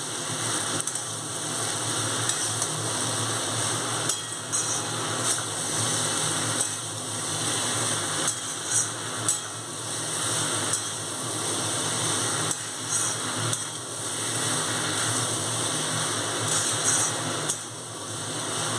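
Vegetables sizzling as they fry in a metal kadai, with a metal spatula scraping and clinking against the pan now and then as they are stirred.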